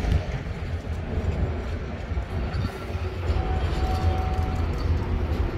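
Steady low rumble with no speech, and a faint thin tone that comes in for about a second around three and a half seconds in.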